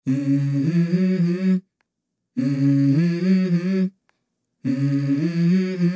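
Background music: a wordless vocal melody, three short phrases of a few held, stepping notes each, separated by sudden full silences.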